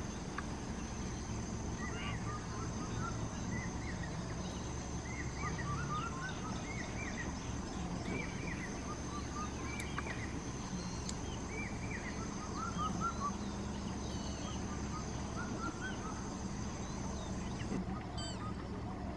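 Outdoor wildlife ambience: a steady high-pitched insect drone, which stops abruptly near the end, over many short bird chirps and a low steady hum.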